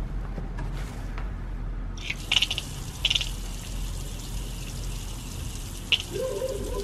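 Water pouring steadily from a rain-barrel faucet that is opened about two seconds in, with a few short splashy spikes as the flow starts.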